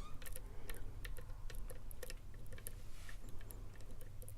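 Faint, irregular small clicks of a lock pick working the pins of a K1Locks challenge padlock under tension, several a second.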